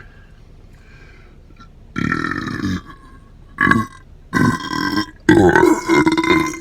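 A man belching four times, starting about two seconds in, the last belch long and drawn out: gas coming up from a bottle of carbonated soda just chugged, which fizzed up fast in his stomach.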